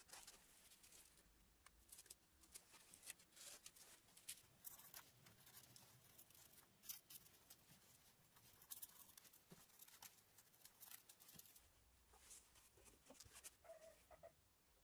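Near silence, with faint crackles and ticks of double-sided tape being peeled, laid on and trimmed along a plywood fan housing seam; the crackling thins out near the end.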